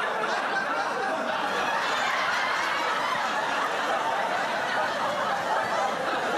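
A group of people chuckling and laughing steadily, with a little mixed talk.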